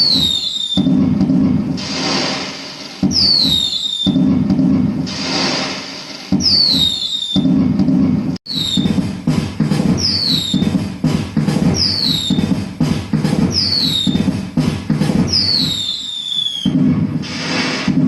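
Fireworks sound effects from a pixel LED cracker tree: short falling whistles repeating every second or two, each over a crackling, booming burst, with a stretch of rapid crackles in the middle.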